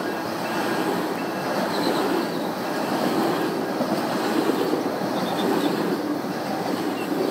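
GO Transit bilevel passenger coaches rolling past: a steady rumble of steel wheels on the rails, with a few faint, short high squeals from the wheels.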